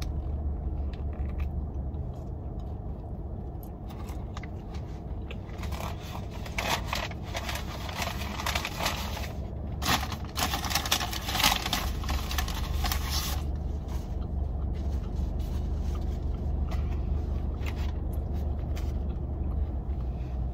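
Biting and chewing a fried chicken sandwich, with paper wrapper rustling and crinkling, loudest between about six and thirteen seconds in. Under it is a steady low hum from the parked car's idling engine.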